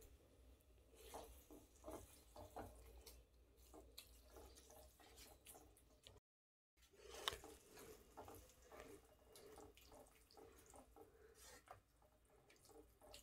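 Near silence, with faint soft wet clicks of a spatula stirring moist methi leaves and peas in a non-stick pan, and one slightly louder click about seven seconds in.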